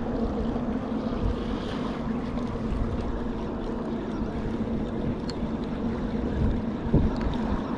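Wind rumbling on the microphone with small waves lapping at the shore, over a steady low hum.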